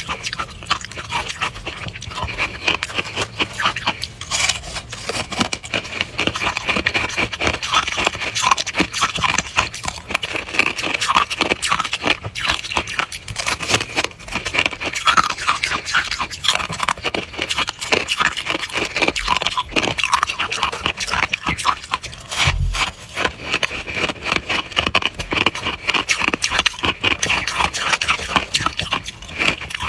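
Close-miked crunching of powdery freezer frost (snow ice): a dense, continuous run of crisp crunches and scrapes.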